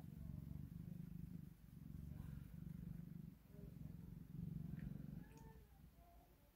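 A black cat purring close to the microphone, a low rumble that swells and breaks with each breath, about once a second, fading near the end.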